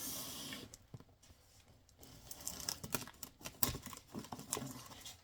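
Cardboard shipping box being handled and opened by hand: a short ripping hiss at the start, then a scatter of light taps, knocks and rustles.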